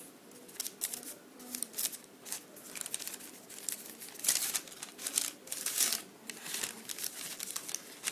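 Sheet of baking paper crinkling and rustling in short, irregular bursts as hands move and turn it on the work surface, busiest a little past the middle.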